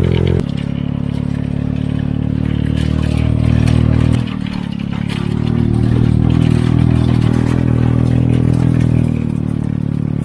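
Small go-kart engine running under load on the ride uphill. Its note drops about half a second in and again around four seconds, then builds back up.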